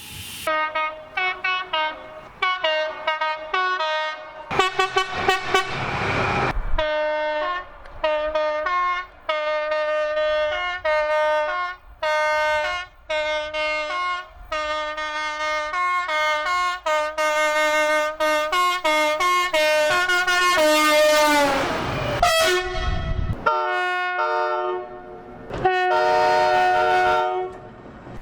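Two-tone train horn sounded in a long, rapid run of short blasts, switching back and forth between a high and a low note. About twenty seconds in, the horn's pitch drops as the train passes, followed by a loud rush of train noise and then more horn blasts on different notes.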